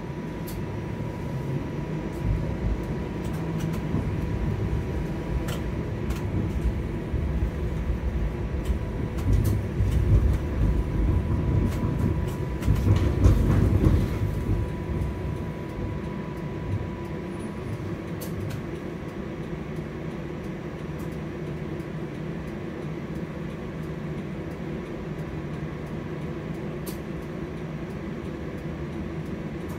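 Toronto TTC streetcar running on its rails: a low rumble of wheels and motors that grows through the first half and is loudest about 13 seconds in, then settles into a steadier, quieter running noise. A faint steady whine runs underneath, with a few sharp clicks and rattles.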